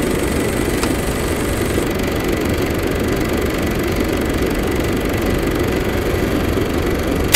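Film projector running: a steady mechanical whirring rattle that ends with a sudden loud hit at the very end.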